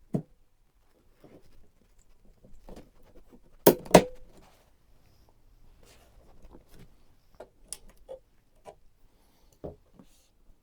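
Small clicks and taps of PC parts being handled during assembly, with two sharp knocks close together about four seconds in.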